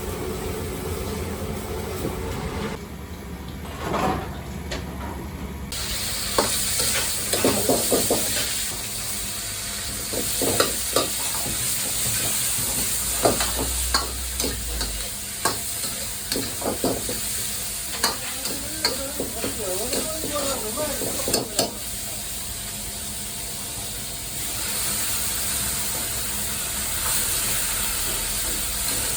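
Food frying in a wok, most likely vegetables for tanmen, with a loud sizzle that starts about six seconds in. A metal ladle clanks against the wok many times as the food is stirred and tossed, then the steady sizzle runs on near the end.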